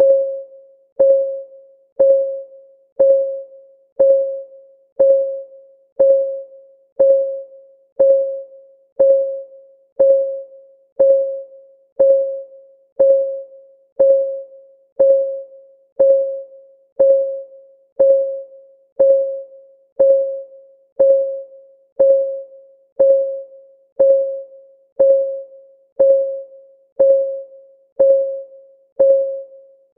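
A countdown timer's ticking sound effect: one short, pitched tick every second, each ringing briefly and fading within about half a second, perfectly even and unchanging.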